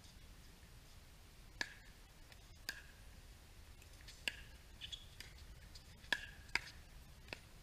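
Pickleball paddles hitting the plastic ball during a doubles rally: a run of sharp pops at uneven spacing, quickening to several in a row near the middle, with the loudest pair a little before the end.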